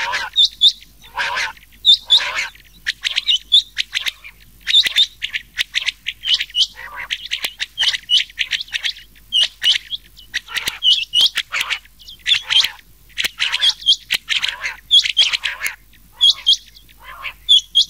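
Rain quail calls mixed with common quail calls, played as a hunting lure. Short sharp double notes repeat rapidly and overlap, several calls a second, with no break.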